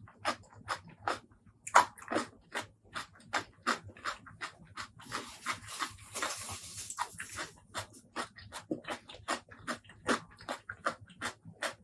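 Close-miked eating: wet chewing and smacking mouth clicks, about two to three a second, with a longer hissing stretch of about two seconds starting around five seconds in.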